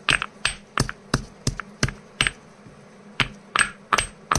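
Stone pestle pounding black cardamom pods in a stone mortar: sharp strikes at about three a second, with a short pause a little past halfway.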